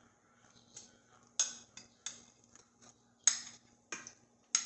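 Metal kitchen tongs clicking against a glass bowl while pieces of raw meat are picked out for frying, a string of sharp clicks about once a second.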